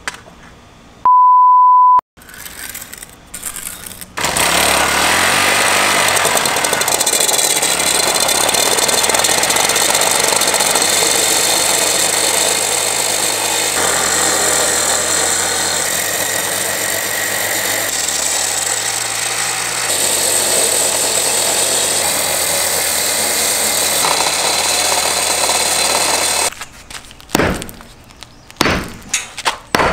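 A one-second steady beep about a second in, then a Makita MM4 four-stroke concrete saw running at full throttle and cutting into a concrete slab for about twenty seconds, its engine pitch shifting and jumping at several abrupt edits. Near the end, a few sharp knocks.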